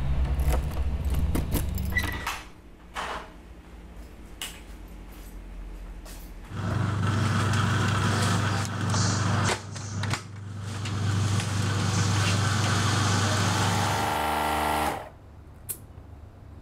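A motor hums steadily at one pitch, starting abruptly about six and a half seconds in and cutting off sharply near the end, after a low rumble and a few clicks at the start.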